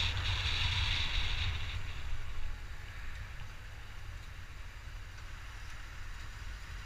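Wind rushing over the microphone of a moving motorbike, with the engine rumbling low underneath. The wind hiss dies away about two and a half seconds in as the bike slows into queuing traffic, leaving a quieter engine rumble.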